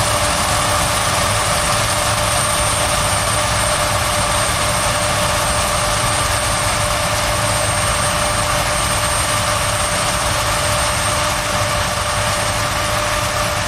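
Claas Lexion 570C combine harvester running steadily under load while threshing maize: a constant engine and machinery hum with steady whining tones over it.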